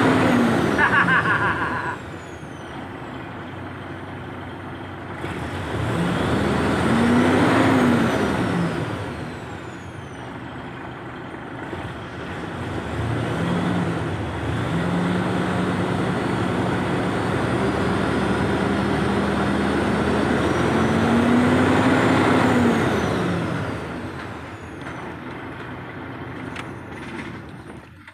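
Mitsubishi Fuso 6M70 inline-six diesel engine running just after starting on one crank, its hard-starting fault fixed. It is revved up and back down four times, with a steady raised speed held for several seconds in the middle.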